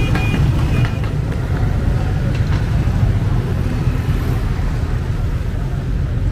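Steady low rumble of slow-moving street traffic, cars and motorbikes passing close by, with a brief high tone in the first second.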